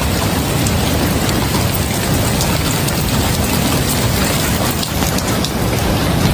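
Rainwater floodwater rushing steadily in a continuous loud wash, with fine patter on top.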